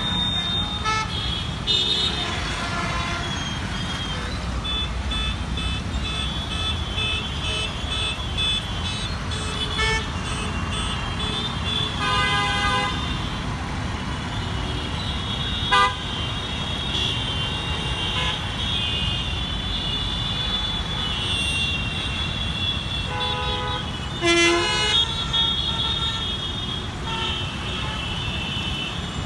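Busy road traffic at an intersection: motorcycles, auto-rickshaws and cars running with a steady rumble, and horns tooting over and over, often in quick short beeps. A sharp knock comes about halfway through, and a louder, lower-pitched horn sounds near the end.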